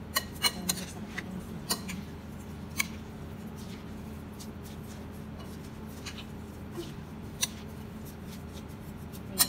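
A metal spoon stirring raw rice and chopped vegetable filling in a glass bowl, clinking sharply against the glass: several clinks in the first three seconds, then one about seven seconds in and one near the end, over a steady low hum.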